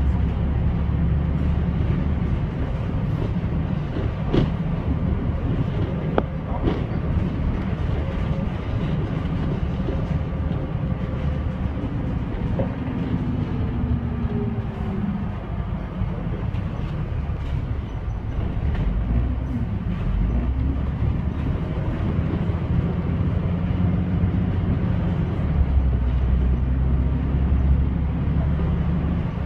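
Bus engine and road noise heard from inside the upper deck of a moving bus: a steady low rumble, its engine note gliding down and back up midway as the bus slows and picks up speed, with a few sharp knocks and rattles from the body.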